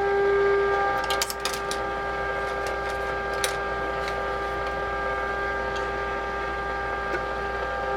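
Steady audio tone with overtones: the AM modulation tone from the signal generator leaking through the vintage FM radio's ratio detector. It drops in level about a second in as the detector is tuned to reject the AM. A low hum runs underneath, with a few light clicks in the first few seconds.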